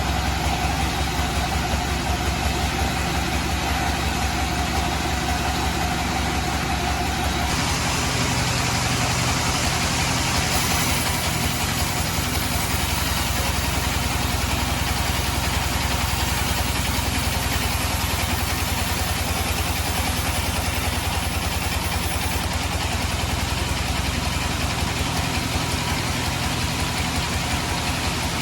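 Band sawmill and its drive engine running steadily while sawing teak. The sound changes character about seven seconds in, when a steady tone drops out, and shifts again a few seconds later and near the twenty-two-second mark.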